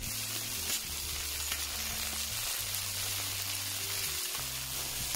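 Chopped greens sizzling steadily as they are pushed into hot fat in a cast-iron cauldron.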